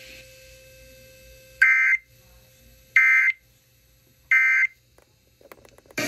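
EAS end-of-message tones from a weather radio's speaker: three short, identical bursts of data tone, about a second and a half apart, which mark the end of the severe thunderstorm warning broadcast.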